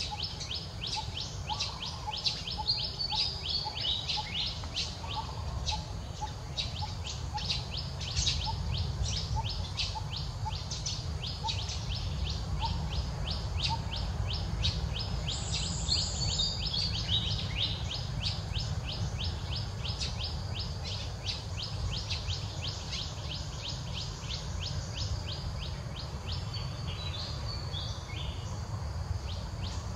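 A steady run of short, high chirping calls, evenly repeated about three times a second, over a low rumble of outdoor background noise.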